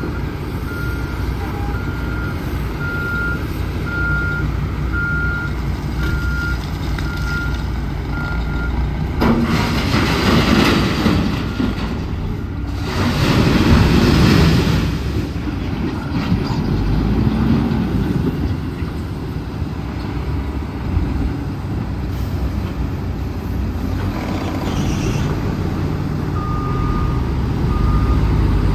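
Heavy dump truck running with its reversing alarm beeping about once a second. Partway through the beeping stops and two long, loud rushing bursts of noise come over the engine, and near the end a reversing alarm beeps again at a slightly lower pitch.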